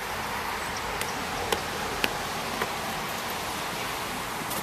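Steady outdoor background hiss with a few brief sharp clicks, the first about a second in.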